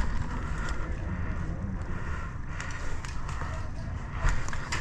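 A player's footsteps while moving, over a steady low rumble of wind and handling noise on the microphone, with a few short knocks.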